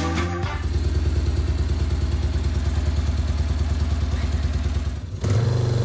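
Motorcycle engine idling with an even, quick beat. About five seconds in, the sound cuts to the engine running louder.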